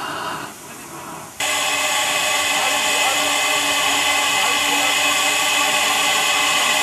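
Narrow-gauge steam tank locomotive 99 773 letting off steam: a loud, steady hiss starts suddenly about a second and a half in, as steam jets out low at the front of the engine.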